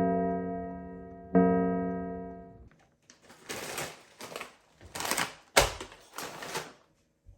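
Two struck electric-piano or keyboard chords, each ringing and slowly fading, the second about a second and a half in. After it dies away, a run of short noisy swishes with one sharp click in the middle.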